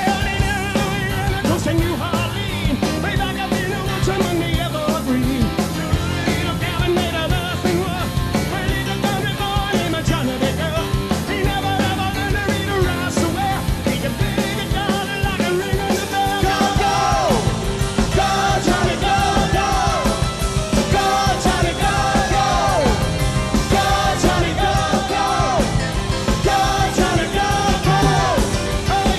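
Rock and roll band playing a medley, with a lead singer over drums and guitars.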